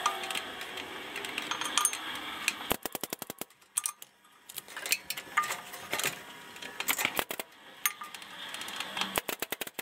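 Grease gun greasing the front suspension fittings: sharp metallic clicks and rattles from the gun and its hose coupler, with fast runs of clicking about three seconds in and again near the end.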